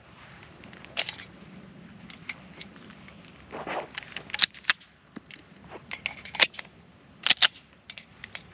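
Irregular sharp cracks and clicks of gunfire and pistol handling on a shooting range, the loudest about six and a half seconds in and a close pair about seven and a half seconds in.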